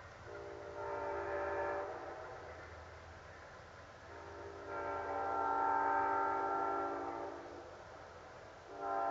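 Train horn sounding a chord of several notes at once: two long blasts and then a short one.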